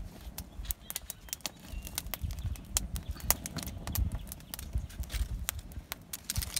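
Wood fire crackling in an open stone hearth: many irregular sharp snaps and pops, over a low rumble.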